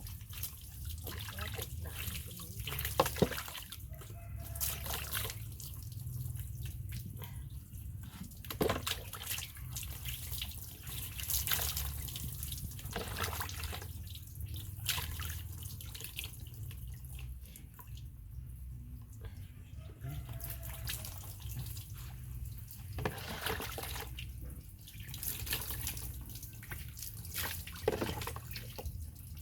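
Water splashing and dripping in irregular spurts as a baby monkey is washed, over a steady low hum.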